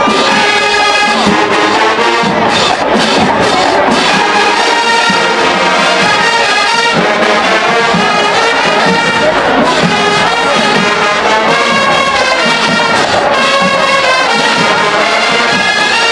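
Marching band brass section playing loudly, trombones and trumpets carrying held and moving notes without a break.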